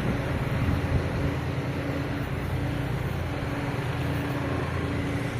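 Kubota MU5502 tractor's diesel engine running steadily under load, a constant low drone with a steady hum on top.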